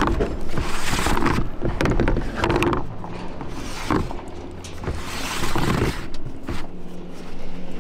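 Hard plastic lid being twisted and scraped shut on a planter's plastic seed tank: repeated grinding, rubbing strokes with a sharp knock about four seconds in. A low steady engine hum runs underneath.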